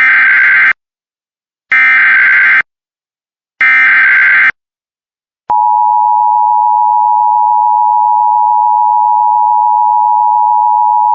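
Emergency Alert System broadcast opening: three short bursts of the screeching SAME digital header, each under a second and about a second apart, then the steady two-tone EAS attention signal starting about five and a half seconds in.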